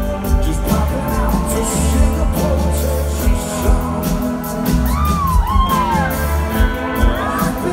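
Rock band playing live with keyboards, guitars, drums and a singing voice, heard loud through a phone from the crowd in a large venue, with a few shouts from the audience.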